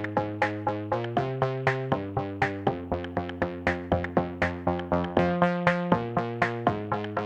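Electronic background music: synthesizer chords over a steady drum-machine beat of about four strokes a second.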